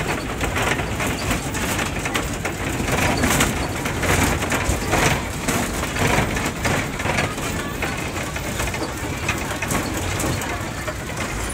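Inside an MSRTC bus driving over a rough, potholed road: the body and fittings rattle and knock, with a steady rumble of engine and road noise underneath.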